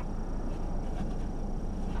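A car running with a steady low rumble, and one short click at the start.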